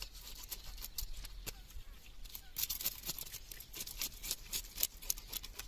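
Knife blade scraping scales off a whole fish against a rock: quick, irregular short scrapes with crisp clicks, busier in the second half.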